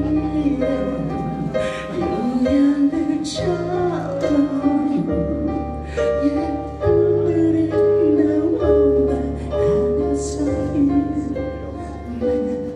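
A male vocalist singing a slow rock song live with a band, over sustained keyboard chords and a bass line that changes note every second or two, with light cymbal washes.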